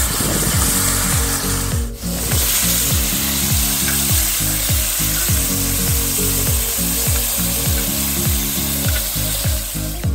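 Shrimp sizzling hard in butter and oil on a hot disco (plough-disc wok) over a wood fire, with metal tongs scraping the disc as they are stirred. A steady low thumping beat of about two thumps a second runs underneath.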